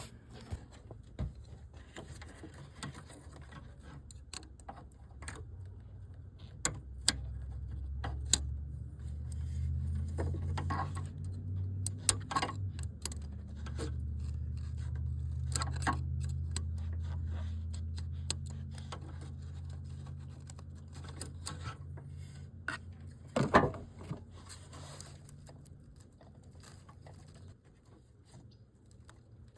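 Small clicks, taps and scrapes of a flathead screwdriver and hands working the retaining pin off a headlight bulb's base. A low steady hum rises a few seconds in, holds through the middle and fades away well before the end.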